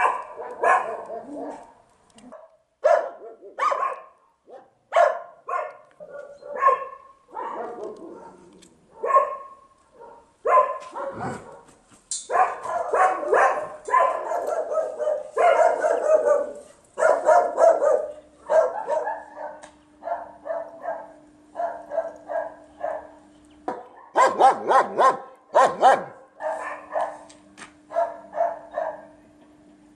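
A dog barking repeatedly in quick runs, with a loud volley of barks near the end.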